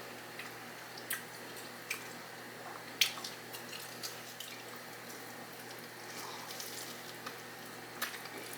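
Quiet wet food handling: a few soft clicks and taps over a low steady hiss, as a hot Cheeto-crusted lobster tail is dipped into queso.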